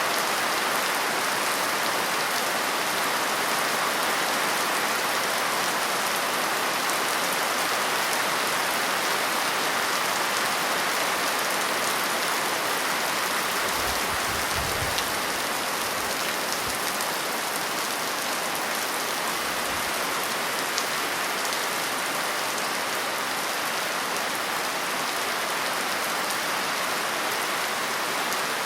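Steady rain falling, an even hiss, with a few faint low rumbles near the middle.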